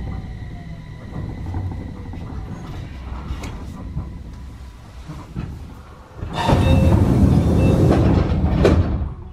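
Enshu Railway 2000 series electric train settling to a stop, its low rumble and faint whine dying away. About six seconds in, a loud hiss of air lasts about three seconds and ends with a click.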